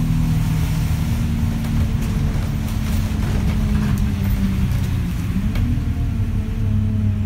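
Alexander Dennis Enviro200 single-deck bus heard from inside the saloon while under way: the diesel engine runs at a fairly steady note over road rumble, its pitch shifting slightly about five seconds in.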